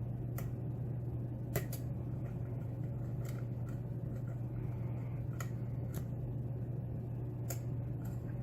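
Light metallic clicks and ticks of a hook pick and tension wrench working the pins of a Schlage pin-tumbler lock, about seven scattered clicks, over a steady low hum.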